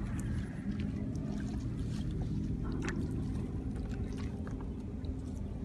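A steady low rumble, with a few faint ticks and small splashes as hands sort weeds and fish in a bamboo basket standing in the water.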